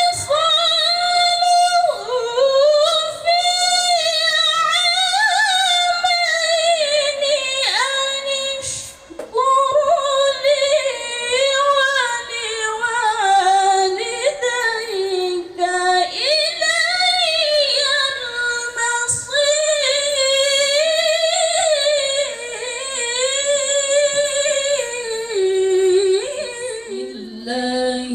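A woman reciting the Quran in the melodic tilawah style, drawing out long held notes with wavering, ornamented pitch bends, with a brief breath pause about nine seconds in.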